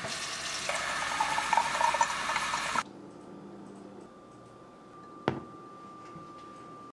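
Water running from a faucet in a steady rush that stops abruptly about three seconds in. A single sharp tap is heard a little over five seconds in.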